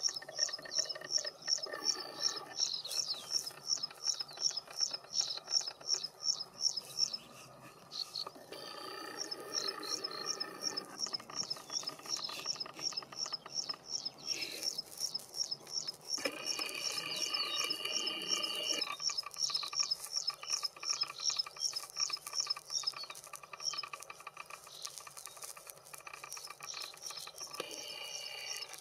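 Graceful prinia singing: a long run of short, high, identical chirps, about four or five a second, pausing twice before starting up again.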